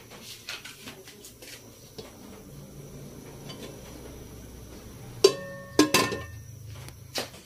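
Aluminium pot lid clanking twice on the rim of the pot a little past five seconds in, each clank ringing briefly. Under it runs the low steady rush of the gas burner heating the pot.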